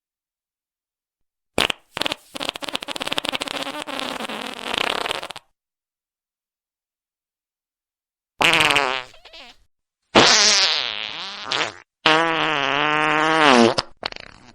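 A series of farts separated by silence: a brief pop, then a long fluttering fart lasting about three seconds. After a few seconds of silence come three more in quick succession, each with a clear pitch that wavers up and down.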